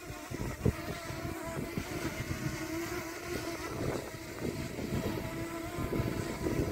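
DJI Mini 2 quadcopter hovering, its propellers giving a steady buzzing hum, with gusty wind rumbling on the microphone.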